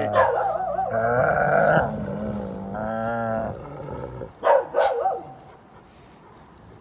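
Dogs squabbling over a raw pig's head: long, wavering growl-whines that rise and fall, a pause, another short one, then two short sharp yips about four and a half seconds in.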